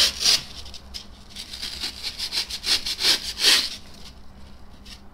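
Utility cutter blade slicing and scraping through a block of polyurethane foam in a series of short scraping strokes, which stop about four seconds in.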